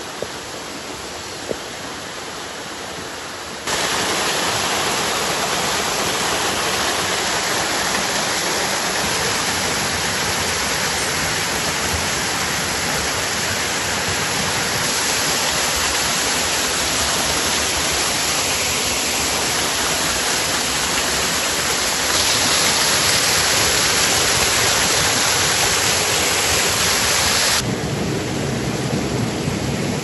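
Creek water and a waterfall rushing: a steady hiss of falling and running water. It jumps louder about four seconds in and changes level abruptly several more times.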